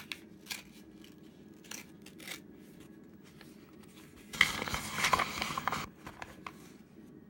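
A paper mailing envelope being handled and opened: light rustling and clicks, then about a second and a half of loud, rough paper noise about four seconds in as it comes open.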